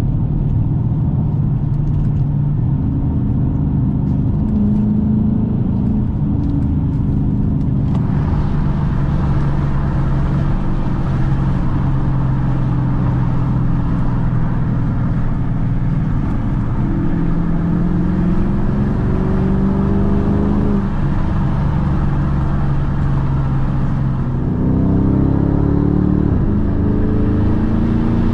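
2012 Dodge Challenger R/T's 5.7-litre Hemi V8 running under way, its engine note climbing in pitch as the car accelerates, most clearly twice in the second half. Road and wind noise grows about eight seconds in.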